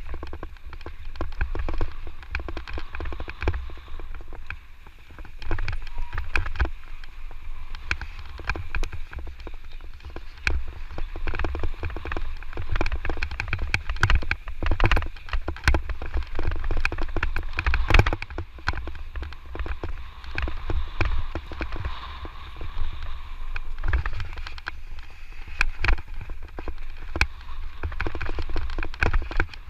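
Electric mountain bike ridden fast over a rough trail: irregular rattling and knocking from the bike over rocks and roots, tyres on loose ground, over a constant low rumble.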